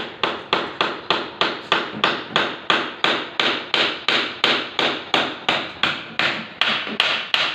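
Hammer striking steadily, about three blows a second for some two dozen blows, slowing slightly near the end.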